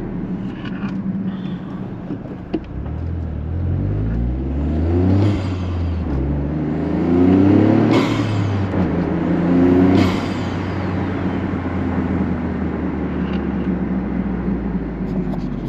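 GR Corolla's turbocharged 1.6-litre three-cylinder engine with a K&N intake accelerating through the gears, heard with the windows down: the engine note rises in three pulls, about 3, 6 and 9 seconds in, each ending in a brief hiss at the shift, then settles to a steady cruise. The intake noise is super loud.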